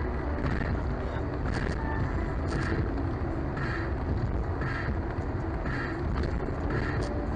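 Car cabin noise while driving: a steady low engine and road rumble. A fainter sound repeats about once a second over it.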